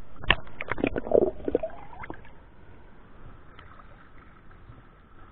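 Shallow river water splashing and sloshing as hands rummage in it and lift out rusty metal scrap, with a quick cluster of sharp knocks in the first two seconds. It then settles to a quieter, steady background.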